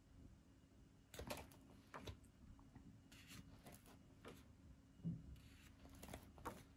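Faint paper rustling as the pages of a coloring book are turned and handled: a string of short, soft rustles, with a louder dull thump about five seconds in.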